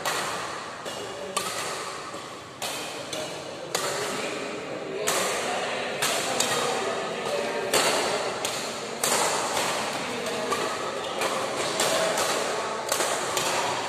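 Badminton rackets striking a shuttlecock in a rally: sharp hits at uneven intervals, about one a second, each echoing through a large hall.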